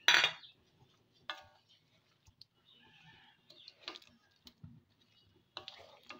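A spatula stirring vegetables in a pan of curry, knocking and scraping against the pan: one loud knock at the start, then a few separate sharp clicks with a short metallic ring.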